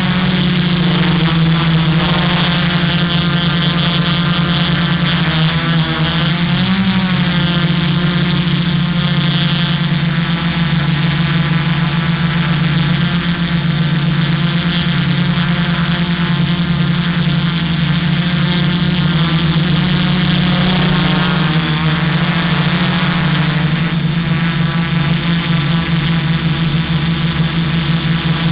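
Multirotor quadcopter's electric motors and propellers humming steadily at hover, close to the onboard camera, the pitch wavering briefly twice as the motor speeds change.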